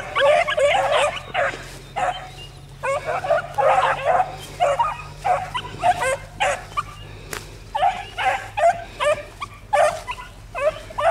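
A pack of five-and-a-half-month-old hound puppies baying and yipping as they run a rabbit, their short calls overlapping and coming several a second: young hounds giving voice on the rabbit's trail.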